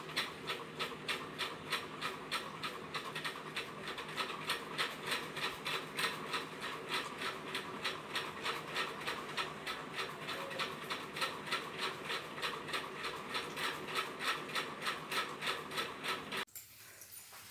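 A Pomeranian puppy crunching dry kibble, chewing steadily at about four bites a second, over a faint steady hum. The chewing cuts off suddenly near the end.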